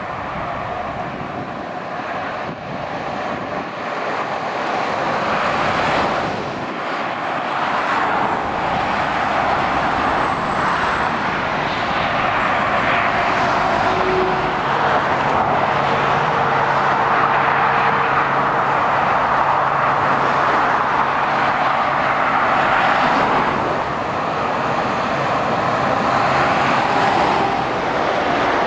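Steady motorway traffic: tyre noise and engines of lorries and cars passing below, swelling and easing as vehicles go by, with a low engine drone from a passing heavy vehicle for several seconds in the middle.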